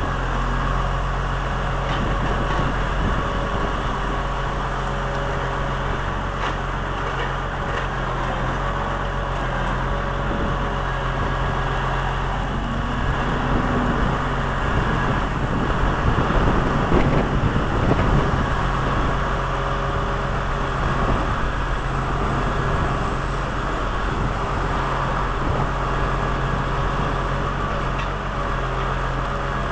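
A heavy diesel engine running steadily with a constant low hum, with some irregular louder mechanical noise about halfway through.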